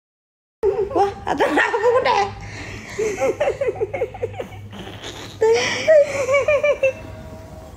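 A woman laughing in an uncontrollable fit: high, breathless runs of laughter in quick repeated pulses that start about half a second in, ease off briefly, then break out again about two-thirds of the way through.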